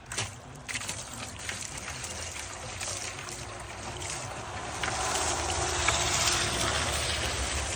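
Water pouring and splashing, getting louder about five seconds in; half of it misses the container and spills.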